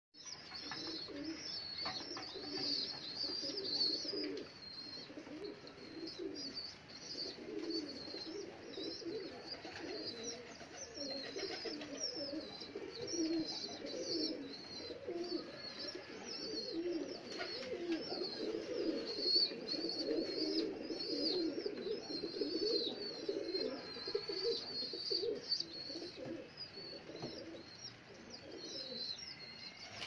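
Pigeons cooing continuously, a low, pulsing murmur of calls, with constant high-pitched chirping over it.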